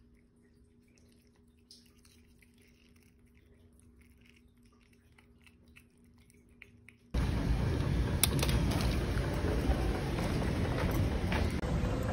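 A cat licks a liquid treat from a squeeze tube: faint soft wet ticks over a low steady hum. About seven seconds in, this gives way abruptly to the much louder, steady noise of a busy indoor shopping area, with a few sharp clicks.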